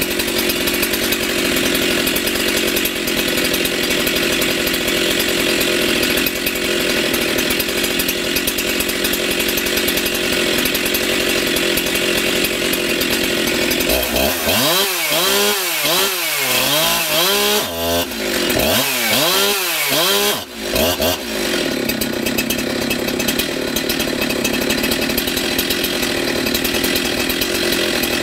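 Jonsered 2171 two-stroke chainsaw running steadily with the chain out of the wood. About halfway through, the throttle is blipped in a quick run of revs, the engine note rising and falling several times, before it settles back to a steady run.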